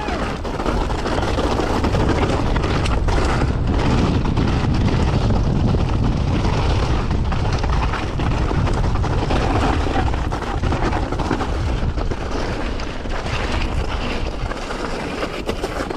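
Mountain bike riding down a rocky trail: heavy wind rumble on the camera's microphone, with tyres crunching over loose rock and the bike rattling over the bumps.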